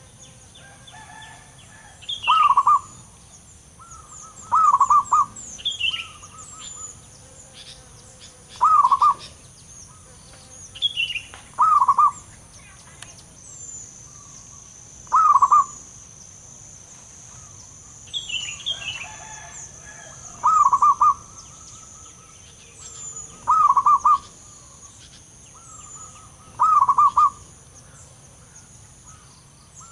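Wild zebra dove calling: about eight short, rolling trilled coos, each about half a second long, repeated every few seconds. Faint high chirping runs behind them.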